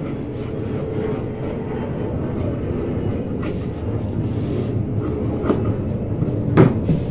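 Scissors cutting print fabric on a table, with a few short sharp snips or clicks, the loudest about six and a half seconds in, over a steady low rumble in the background.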